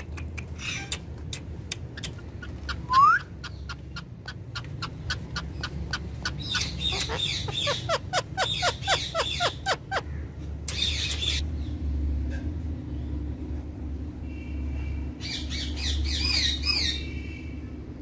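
Female Indian ringneck parakeet calling and chattering: rapid clicks and quick short notes, a sharp rising whistle about three seconds in, a short noisy squawk about eleven seconds in, and high chirps near the end.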